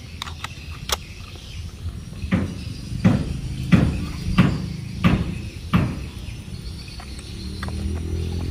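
Handling of plastic toy train parts: a few light clicks as the battery cover goes onto the locomotive, then six sharp knocks about two-thirds of a second apart. A low hum comes in near the end.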